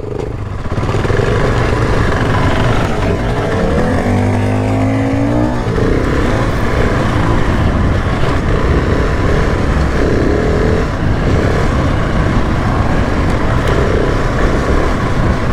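Off-road motorcycle being ridden under way, its engine note rising for a moment about four to five seconds in. Heavy wind rush on the microphone sits over it.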